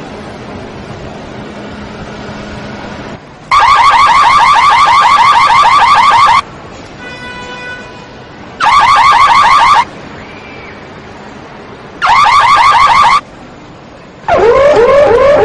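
Car alarm siren going off in loud bursts of fast warbling tone, cycling through its patterns. A long burst starts about three seconds in, then two shorter ones. A lower-pitched warble begins near the end.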